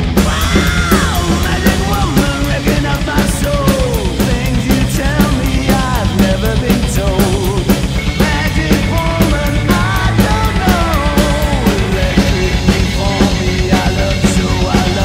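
Ludwig birch drum kit with a Gretsch maple snare and Paiste 2002 cymbals played in a fast, driving rock beat. It is played along to a recorded hard rock song whose singing comes in at the start.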